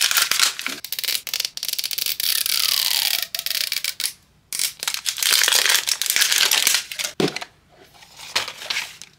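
Thin plastic wrapper being torn and peeled off a plastic toy capsule ball by hand: a run of crinkling and tearing with a short break about four seconds in. A sharp click a little after seven seconds as the capsule halves are pulled apart.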